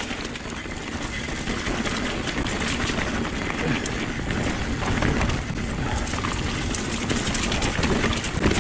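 Giant Trance mountain bike being ridden over a wet, waterlogged trail: a steady rush of tyre and wind noise, with frequent small clicks and rattles from the bike.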